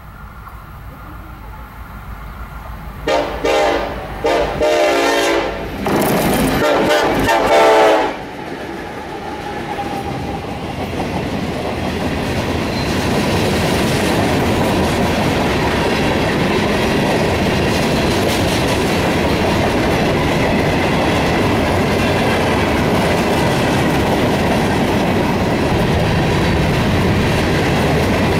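A Ferromex freight train led by an EMD SD70ACe and a GE AC4400CW diesel locomotive draws near and passes close by. The lead locomotive's air horn sounds a series of blasts about three seconds in, the last and longest about two seconds. After the locomotives go by, the loaded freight cars roll past with a steady rolling noise and the clickety-clack of wheels over the rail joints.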